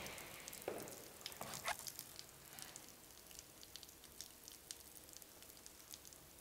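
Faint splashing and dripping of water into a stainless-steel urinal trough, with a few louder knocks in the first two seconds.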